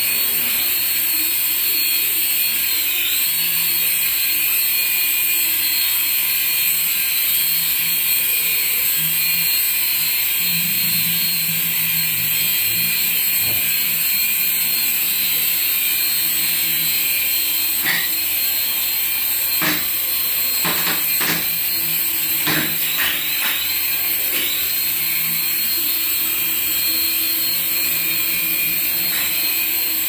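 Small toy RC helicopter's electric rotor motors whining steadily, the pitch gliding up and down now and then. A handful of sharp taps come in quick succession about two-thirds of the way through.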